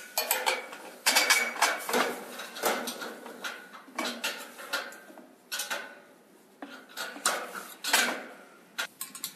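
Steel bolts and galvanized steel brackets clinking and knocking together as bolts are pushed through the bolt holes of a greenhouse shade post and its base bracket. The metallic clanks come in irregular clusters.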